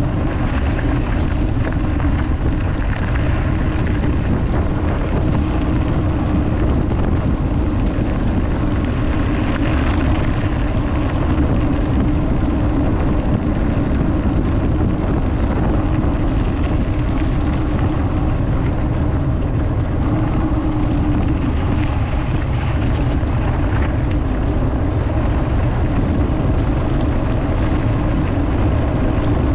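Steady rush of wind buffeting the microphone, with rolling tyre noise from a mountain bike in motion.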